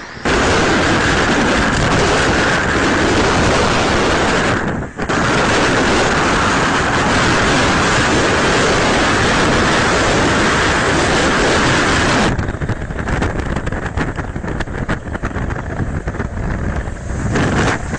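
Hurricane wind blasting the microphone along with storm-surge waves breaking and floodwater rushing, a dense steady rush of noise. It breaks off briefly about a quarter of the way in, and from about two-thirds in it turns gustier and duller.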